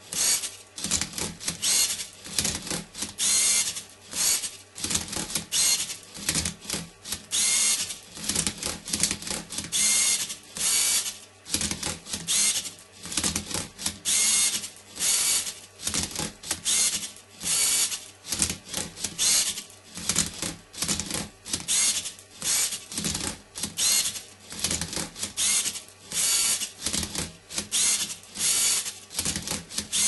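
LEGO Mindstorms NXT Rubik's cube-solving robot at work: its motors whir in rapid short bursts, one after another, as it tilts and twists the cube, with clicks and clatter from the plastic parts and cube.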